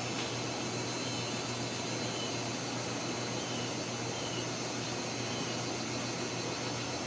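Steady hiss with a low hum underneath, with faint short high chirps about once a second.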